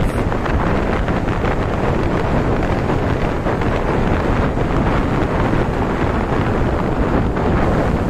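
Storm surf: rough waves breaking and washing up a sandy beach in a loud, steady rush, with strong wind buffeting the microphone.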